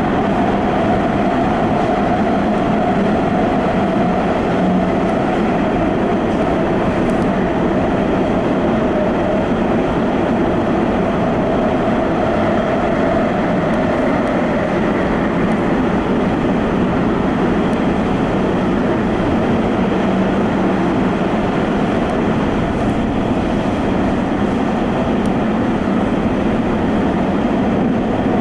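Subway train running at speed through a tunnel: a steady rumble of wheels on rail with a faint whine that fades about halfway through.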